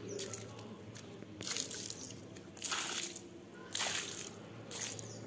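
Water poured from a plastic bucket splashing onto shoes on concrete, in four short splashes about a second apart.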